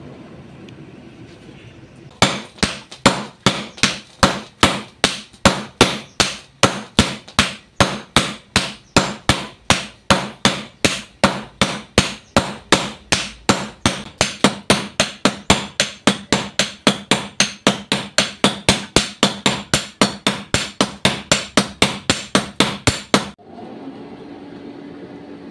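Two blacksmiths' hammers striking hot steel on an anvil in turn, a steady run of sharp metallic blows at about three a second, each with a short ring. The hammering starts about two seconds in and stops abruptly near the end.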